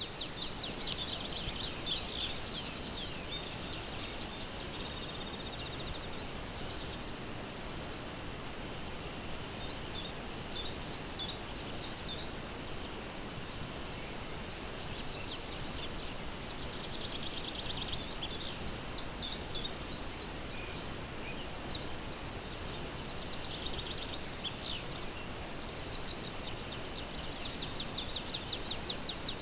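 Birds singing outdoors: repeated bursts of rapid, high trills, several songs in turn, over a steady background hiss.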